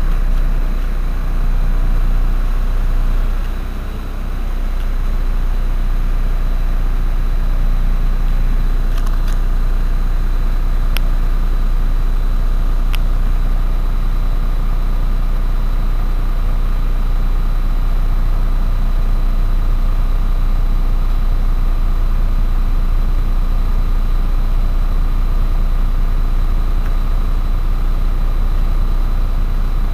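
Heuliez GX 127 city bus's engine idling steadily while the bus stands still, the sound heavy at the low end with a faint steady high whine above it.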